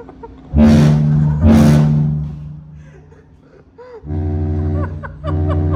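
Royal Caribbean cruise ship horns blasting in a horn battle. Two loud, deep blasts come back to back from about half a second in, and two shorter steady blasts follow, one about four seconds in and one just after five seconds.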